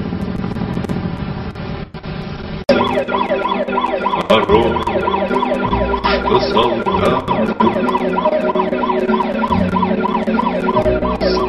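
A vehicle engine running, then about two and a half seconds in a siren starts up suddenly: a fast, evenly repeating rise-and-fall wail, a little under three cycles a second, that carries on loudly.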